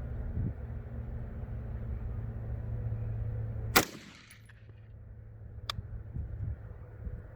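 A single AR-15 rifle shot about four seconds in, sharp and much louder than anything else, with a short echo trailing off. A faint sharp tick follows about two seconds later.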